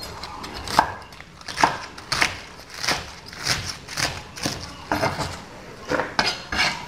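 Kitchen knife slicing leafy green stems on a wooden chopping board: about a dozen sharp knocks of the blade on the board, a little under two a second.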